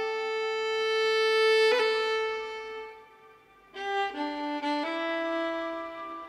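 Background music led by a violin playing slow, long held notes. It fades almost away about three seconds in, then comes back with new notes.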